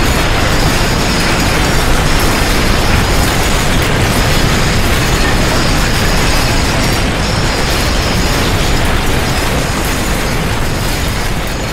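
Loud, continuous earthquake rumble sound effect: a dense, heavy low noise with a rattling, crackling texture, easing off slightly near the end.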